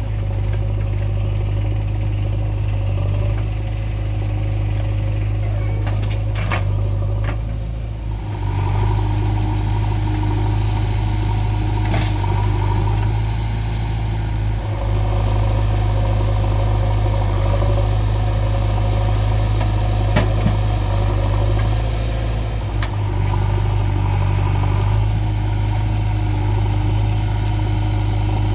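Diesel engines of a JCB backhoe loader and tractors running steadily under working load, the engine note shifting about eight seconds in. A few short, sharp knocks sound over the drone.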